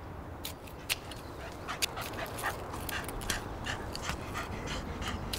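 A dog panting and whimpering in quick, short breaths.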